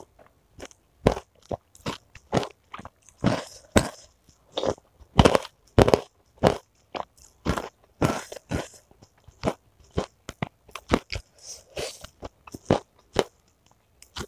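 Close-up crunching and chewing of fried chicken cartilage (tulang rangu) in a mouthful, with sharp, irregular crunches about twice a second.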